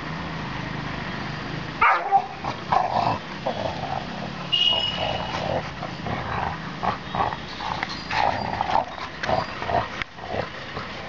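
Two yellow Labrador retrievers play-fighting, growling at each other in short, irregular bursts that start about two seconds in.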